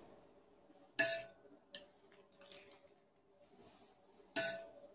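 Pastry brush clinking against a bowl of oily water as it is dipped: a short ringing clink about a second in, a small click, and another clink near the end.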